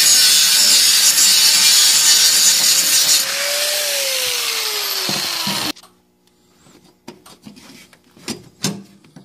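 Angle grinder with a thin cutoff disc cutting sheet steel, a loud screeching hiss over the motor's whine. About three seconds in the cut ends and the whine falls in pitch as the grinder spins down, stopping abruptly near six seconds; then a few light taps and two sharper knocks as the steel patch is handled.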